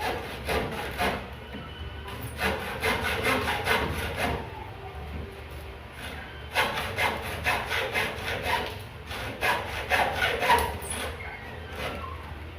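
Handsaw cutting wood, in four runs of quick back-and-forth strokes with short pauses between them.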